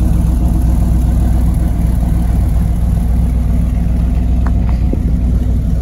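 Chevrolet Camaro IROC-Z28's 350 V8 idling steadily, heard at its dual exhaust tailpipes: an even, low-pitched exhaust note.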